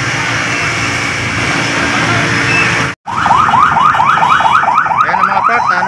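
Steady rumble of traffic and truck engines, which breaks off sharply about halfway through. An electronic alarm then sounds fast, repeated rising whoops, about four a second.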